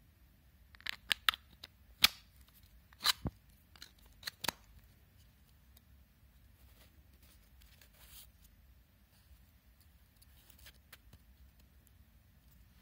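Sharp clicks and knocks of hard 3D-printed plastic parts of a cigarette box tapping and snapping against each other as the box is pulled apart and handled, a quick cluster of them in the first few seconds, followed by faint handling rustles.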